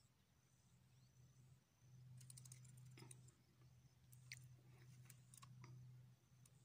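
Near silence: a faint low hum with a scatter of light clicks in the middle.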